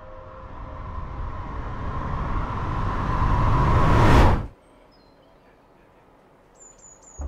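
Soundtrack riser effect: a rising noise swell that grows louder for about four seconds and cuts off suddenly, followed by a few faint bird chirps near the end.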